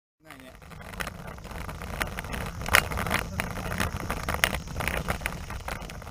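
Road bicycle ridden over paving, heard from a camera mounted on the bike: a steady rumble from the tyres and frame with wind on the microphone, and a few sharp clicks and rattles. It starts suddenly just after the beginning.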